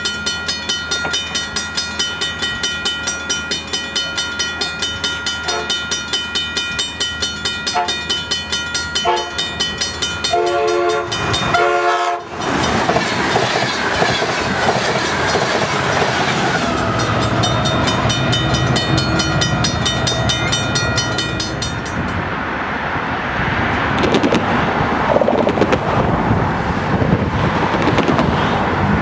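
Grade-crossing bell ringing in a steady beat of about two to three strikes a second. About ten seconds in, an Amtrak Pacific Surfliner train sounds its horn for a couple of seconds. The train then rushes past at speed, its bilevel cars rumbling and clattering over the rails.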